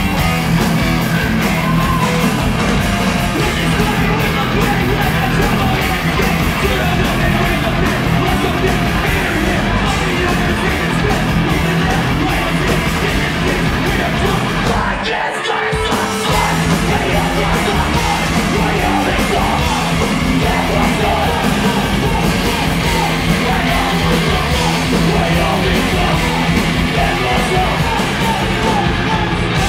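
Loud live rock band playing with yelled, shouted vocals over distorted guitars, bass and drums. The band breaks briefly about halfway through, then comes back in.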